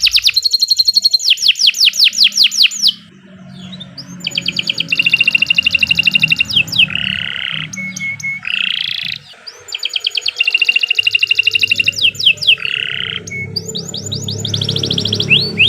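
Domestic canary singing a long song of fast trills and rolls, each a quick run of repeated notes, with brief pauses about three and nine seconds in.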